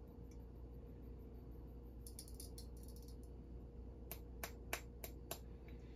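Faint light clicks and taps from handling small items while weighing gold flakes: a quick cluster about two seconds in, then a handful of single sharp ticks over the last two seconds, over a low steady hum.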